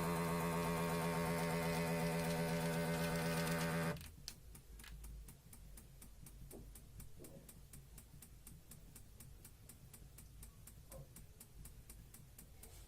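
A small electric air pump, the cuff pump of a digital blood pressure monitor, runs with a steady buzz and cuts off abruptly about four seconds in. After it, a quieter, even ticking goes on at about four ticks a second.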